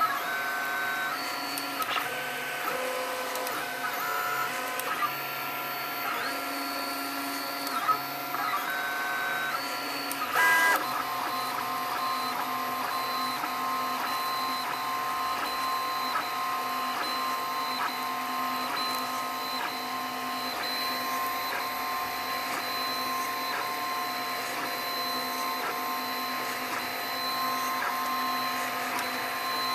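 FDM 3D printer running a print: its stepper motors whine in steady tones that jump in pitch as the print head changes moves, over a steady hiss. About ten seconds in there is a brief louder buzz, after which the tones settle into a steadier pattern.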